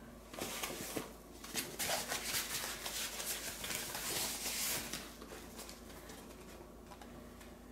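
Rustling and crinkling of foam packing wrap as a boxed device is handled and unwrapped, busiest for the first few seconds, then dying down to faint handling.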